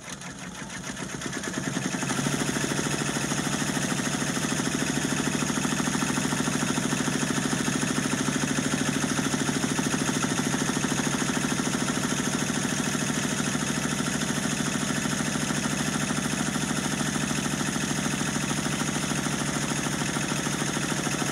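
Brother PR655 six-needle embroidery machine stitching. Its rapid needle strokes speed up over about the first two seconds, then run at a steady pace.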